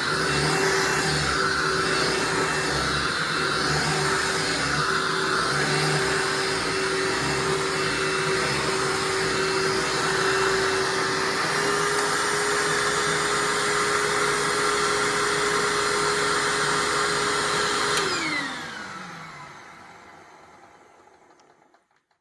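2011 Hoover WindTunnel SP vacuum cleaner running with a steady motor tone. It is switched off about eighteen seconds in, and the motor winds down over about four seconds with a falling pitch.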